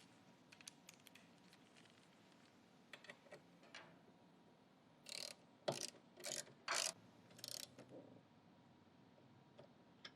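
Ratchet wrench turning 10mm bolts: light clicks at first, then about five short runs of ratcheting about halfway through as the bolts are tightened.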